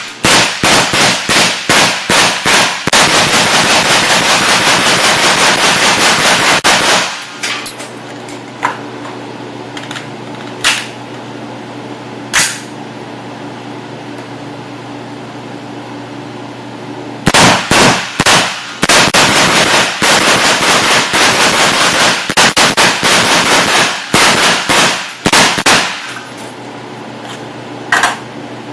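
Suppressed 5.56 rifle with a 7.5-inch barrel fired rapidly semi-automatic in long strings to heat the welded suppressor: a fast run of shots for about seven seconds, three single shots spaced a couple of seconds apart, a pause, then another fast run of about nine seconds and one last shot near the end.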